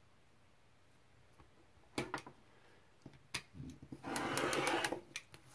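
A few sharp clicks as an acrylic ruler and rotary cutter are set in place, then, about four seconds in, a rotary cutter run once along the ruler's edge, cutting through printed fabric and its paper backing on a cutting mat in a loud gritty stroke of about a second.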